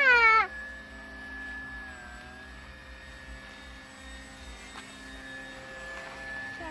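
Motor of a radio-controlled model Avro Baby biplane in flight: a loud whine falls in pitch and drops away about half a second in, then the motor goes on as a faint, steady, thin whine from high overhead.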